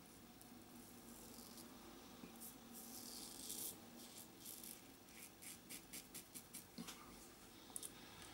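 Gillette Tech double-edge safety razor scraping through lathered beard stubble on the cheek, faint. A longer scrape a second or so in, then a quick run of short strokes, about four a second, in the second half.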